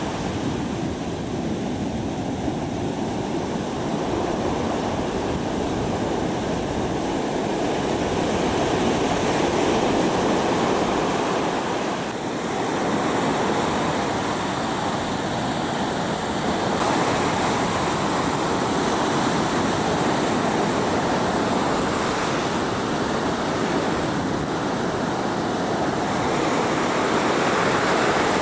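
Ocean surf breaking and washing up a sandy beach: a steady, continuous rush of heavy waves and foam.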